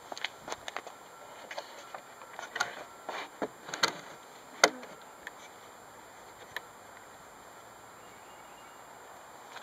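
Scattered knocks and clicks of a wooden plywood plane model being shifted and lowered to a flatter angle, the loudest a sharp knock about four and a half seconds in; after that only faint outdoor hiss.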